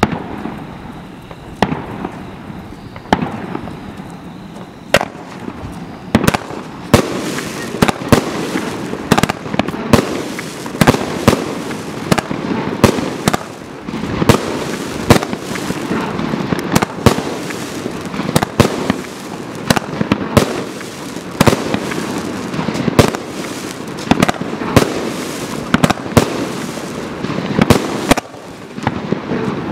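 CE Toxicado 84-shot 1.3G firework barrage cake firing: a fast series of sharp bangs, roughly one or two a second, starting right at the beginning, with continuous crackling between them from the crackling-star effects.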